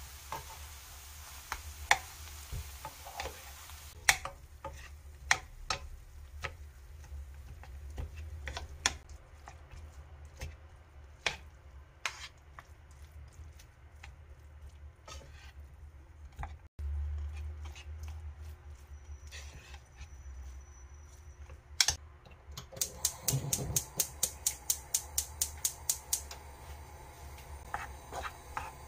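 Wooden spatula and metal spoon knocking and scraping against a nonstick frying pan as rice is broken up and stir-fried, giving irregular sharp clicks. About four-fifths of the way through comes a quick run of taps, several a second.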